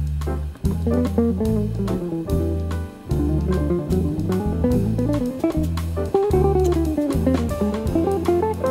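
Background music: a plucked guitar melody over a bass line.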